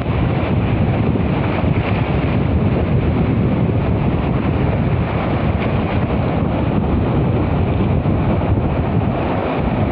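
Steady wind buffeting the microphone, with the wash of shallow sea water beneath it.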